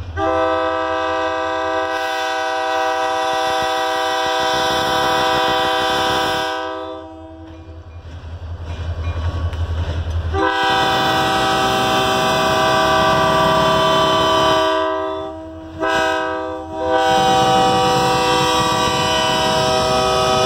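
Diesel locomotive air horn sounding a chord in two long blasts, one short and one more long, the long-long-short-long pattern blown for a grade crossing. Between the first two blasts the lead locomotives' diesel engines rumble as they pass.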